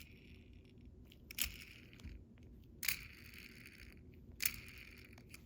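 Hot Wheels die-cast toy car being handled: three short clicks about a second and a half apart, each followed by a brief rasp.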